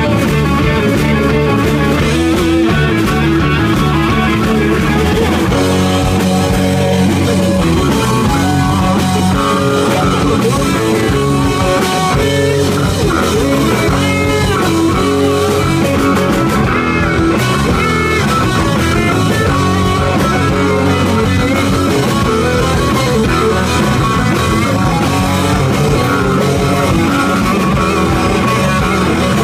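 Live rock band playing an instrumental passage: several electric guitars over a drum kit, loud and continuous.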